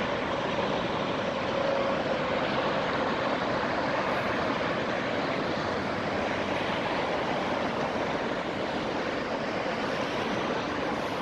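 Steady rush of distant freeway traffic, an even wash of tyre and engine noise with no single vehicle standing out.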